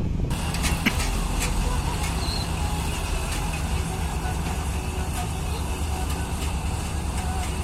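Engine of farm machinery running steadily with a low hum, with scattered clicks and rattles over it.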